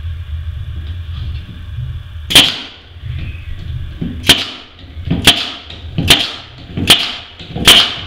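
Narrow-crown staple gun driving 1.5-inch staples into the plywood butt joints of a beehive box. Six sharp shots come irregularly about a second apart, starting a couple of seconds in.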